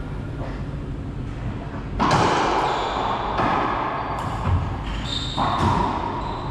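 Racquetball rally: the hollow rubber ball is struck by racquets and smacks off the court walls, several sharp hits echoing in the enclosed court, the loudest about two seconds in.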